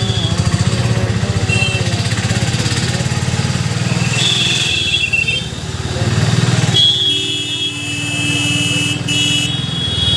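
Auto-rickshaw's small engine running steadily under way, heard from inside the open cabin with an even, rapid putter. High steady tones sound a little before the middle and again through the second half.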